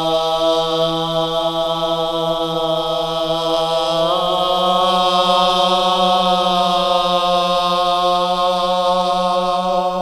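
A chanted drone: one low note sung and held without a break, full of overtones, its pitch nudging slightly upward about four seconds in.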